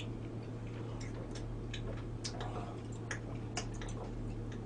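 Scattered, irregular light clicks and crackles from a plastic water bottle flexing as it is tipped up and drunk from, over a steady low hum.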